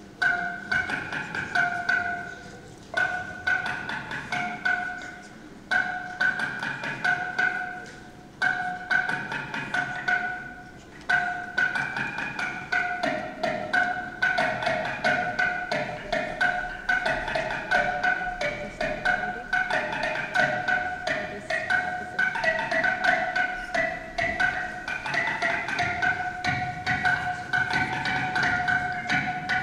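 Live experimental music of quickly repeated, bell-like struck notes on two main pitches, like mallet percussion. Phrases start afresh about every three seconds, then from about twelve seconds in the notes run on without a break and the pitches move about.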